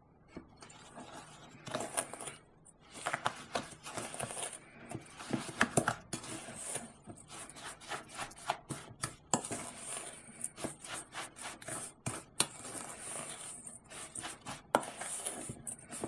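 Wooden spoon stirring buttery biscuit crumbs in a stainless steel mixing bowl: irregular scraping and knocking of the spoon against the metal.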